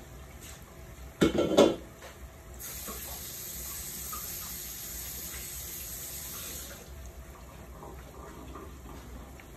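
A brief, loud clatter of dishes about a second in, then a kitchen tap running for about four seconds before it is shut off, over the faint sizzle of meatballs frying in oil.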